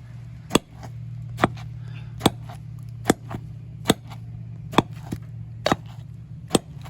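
Sharp knocks repeating at a steady pace, about one a second, over a low steady hum.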